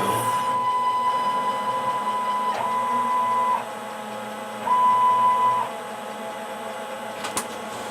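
CNC tube cutter's motors running with a steady, printer-like whine in three moves: a long one, a brief break, a second run ending a little past three and a half seconds, and a shorter run around the five-second mark. A sharp click sounds near the end.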